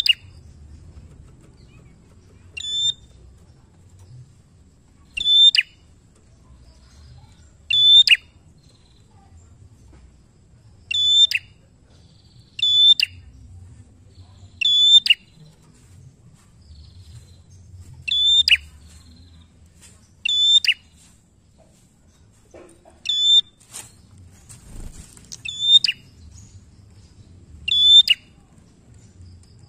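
Tailorbird (prenjak) calling over and over: a short, sharp, high note about every two and a half seconds, each one ending in a quick drop in pitch.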